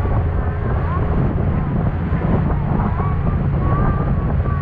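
Motorboat running at speed through the chop: a steady low engine hum under the rush of water along the hull, with heavy wind buffeting the microphone.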